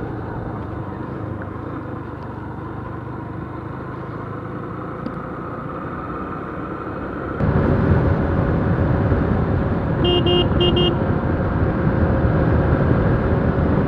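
Yamaha YBR-G 125 single-cylinder motorcycle engine running under way, with road and wind noise on the helmet camera's microphone; the noise jumps suddenly louder about halfway through. About three seconds later a vehicle horn beeps twice in quick succession.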